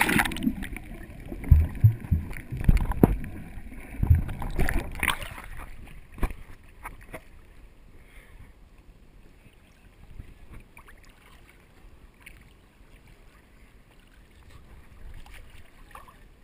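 Seawater sloshing and splashing against a camera at the water surface, with muffled knocks and gurgles as it dips under. After about six seconds it settles into gentle lapping.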